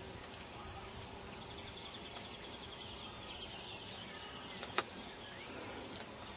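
Open-field ambience: small birds chirping and insects trilling in short runs of rapid ticks over a steady low outdoor hiss. One sharp click stands out about five seconds in.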